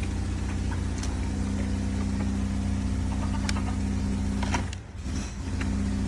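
An engine or motor running steadily with a low hum, with a few sharp clicks over it. The hum drops away briefly about five seconds in, then returns.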